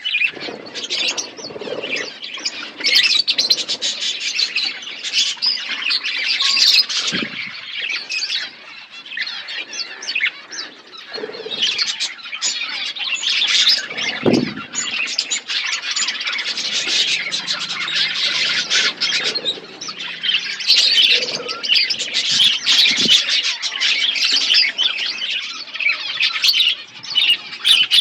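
A flock of small pet birds chirping and chattering busily and without a break. A few low thumps break in, the clearest about halfway through.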